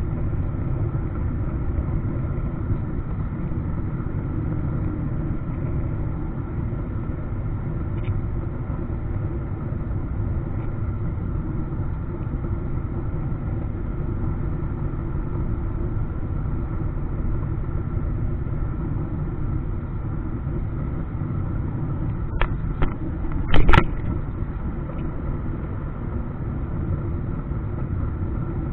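Steady low rumble of jet engines and airflow heard inside an airliner's passenger cabin during the landing approach. A few short knocks come late on, the last one the loudest.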